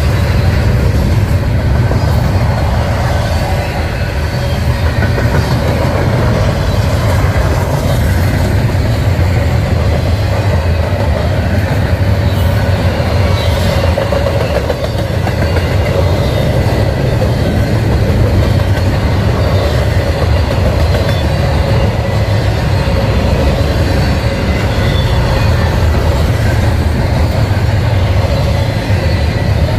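Double-stack intermodal freight cars rolling past: a loud, steady rumble of steel wheels on rail, with a faint steady tone running through it.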